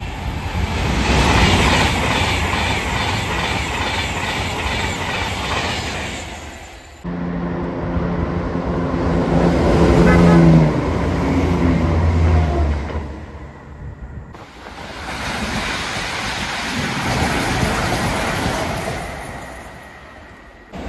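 Passenger trains passing close by on the tracks, in three short takes joined by abrupt cuts. The first is a rumble and rattle of a passing train. The middle one adds a pitched engine note that falls slowly as the unit goes by and peaks before fading. The last is a train approaching and rumbling into a station.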